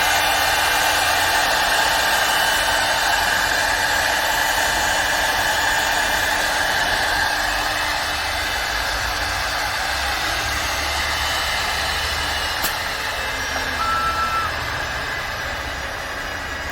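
CNC wood lathe running an automatic cut, its spindle and cutter giving a steady machine whine and cutting noise that eases slightly toward the end. A sharp click comes about 13 seconds in, followed by a short high beep.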